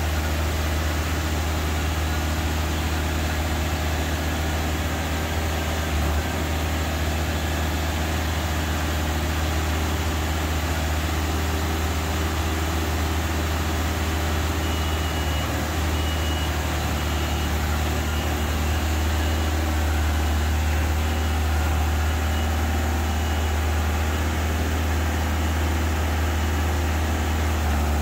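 Genie S-85 telescopic boom lift's engine idling steadily, with a faint high beeping for several seconds in the middle.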